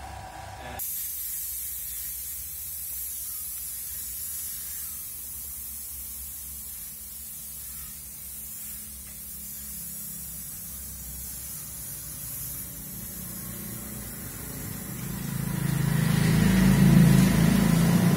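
Compressed-air paint spray gun hissing steadily as it sprays paint, starting about a second in. Near the end a louder low rumble comes in under it.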